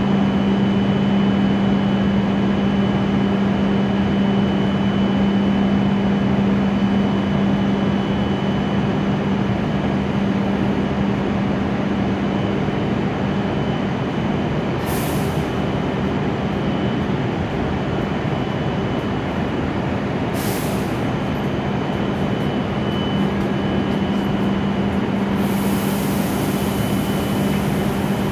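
E7 series Shinkansen standing at the platform, its onboard equipment giving a steady hum with a strong low tone and a faint high whine. Brief high hisses come about halfway through and again a few seconds later, and a longer hiss starts near the end.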